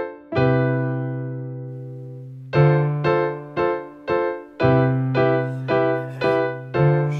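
Background music: a keyboard playing chords, one held and dying away for about two seconds near the start, then chords struck about twice a second.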